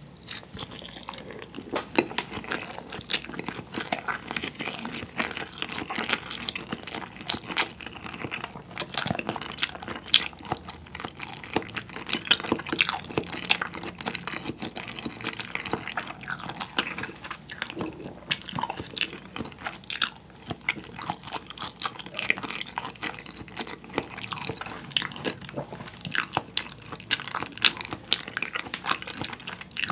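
Close-miked chewing of soy-sauce-marinated raw salmon with rice: a steady run of wet mouth clicks and squishes. The marinade has drawn water out of the salmon, leaving it firm and springy to chew.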